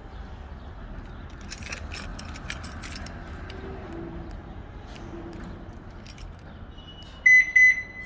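A motorized garage door rising open with a low steady rumble. Keys jingle about a second and a half in, and near the end two short, loud electronic beeps sound, the second trailing into a fainter tone.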